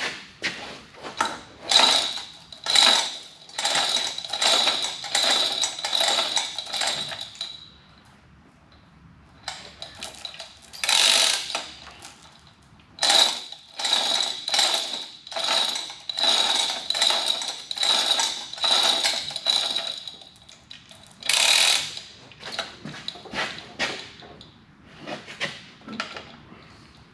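Manual chain hoist lowering a heavy cast-iron lathe tailstock: runs of rapid ratcheting clicks as the chain is worked, with a thin high ring through each run, broken by a couple of short pauses.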